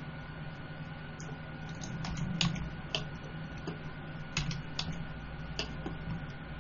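Irregular clicking of computer keys, about eight sharp clicks spread over a few seconds, over a steady low hum.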